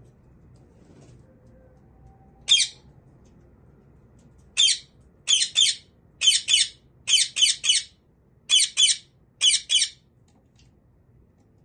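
Alexandrine parakeet squawking: one harsh squawk, then after a pause a run of about a dozen quick squawks, mostly in twos.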